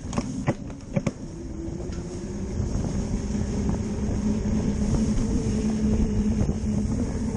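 Cyclocross bike being ridden hard: a few sharp knocks and rattles from the bike in the first second, then a steady rolling noise of the tyres with a low hum. The rolling noise grows gradually louder as the bike picks up speed.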